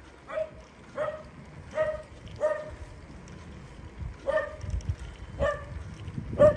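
A dog barking: seven short barks, four in quick succession, then three more after a pause of about two seconds, the last one the loudest.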